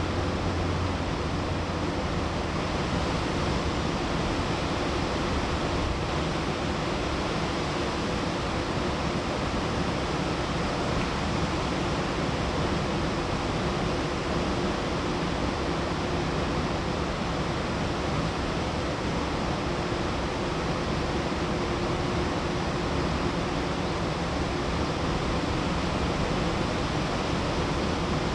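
Steady, unchanging rushing noise with a faint low hum running through it.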